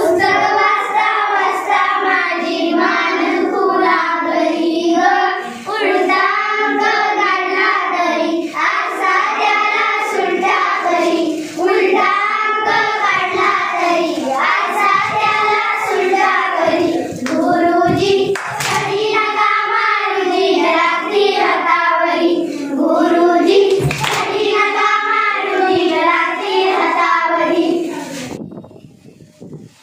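A group of children singing a song together in chorus, ending about two seconds before the close.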